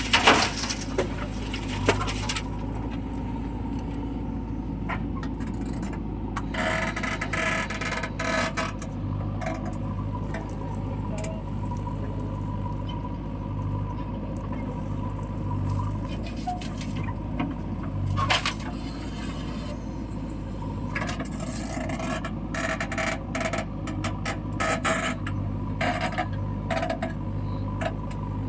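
Diesel engine of a JCB backhoe loader running steadily, with repeated scraping and sharp metallic clanks as the bucket digs and dumps mud.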